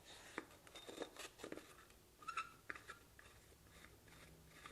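Faint, scattered clicks and light knocks of hands handling the vacuum pump and its parts, several in the first three seconds.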